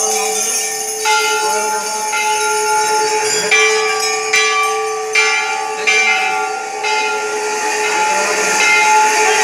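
Temple bells (ghanta) rung over and over by worshippers, fresh strikes every second or so over the ringing of the last ones, so the ringing never stops.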